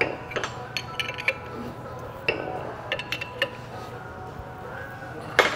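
A steel wrench clinking and clicking against the bolts as they are tightened down on a progressing cavity pump's suction case. The metal clinks come irregularly, with the loudest strike near the end.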